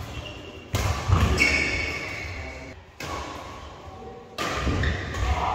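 Badminton rally in a large hall: racket strikes on the shuttlecock and players' feet thudding on the court mat, with hall echo. A couple of sharp hits stand out, and the sound breaks off abruptly and resumes about three seconds in.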